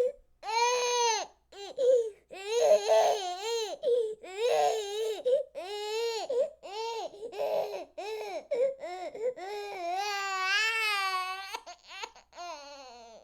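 Baby crying: a string of short, wavering wails with brief catches of breath between them, then one longer drawn-out wail near the end.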